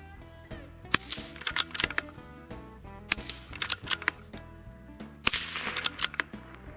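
Three suppressed .22 LR pistol shots through an Innovative Arms Slingshot TI suppressor, about two seconds apart, each sharp crack followed by a quick cluster of smaller clicks. Music plays underneath.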